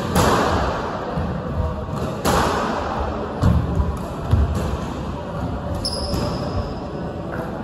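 Squash rally: sharp cracks of the ball off rackets and the walls every second or two, ringing in the court. Heavy footfalls thud on the wooden floor, and a brief high squeak comes about six seconds in.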